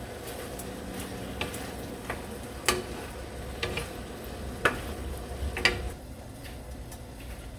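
Food cooking in a pan with a steady hiss. A utensil stirring it knocks sharply against the pan about five times.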